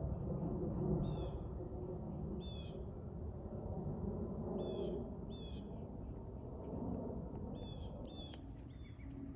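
A bird calling over and over, short harsh calls about six times with a quick pair near the end, over a steady low rumble.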